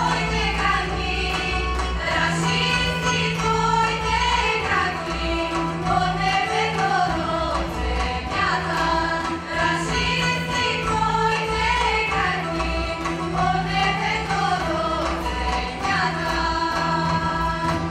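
A group of women singing a Balkan folk song together in close harmony, in rising and falling phrases over a steady low held drone.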